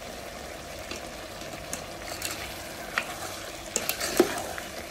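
Metal spoon stirring chopped mango in an aluminium pot, scraping and clinking against the pot several times, loudest about four seconds in, over a steady sizzle from the simmering pot.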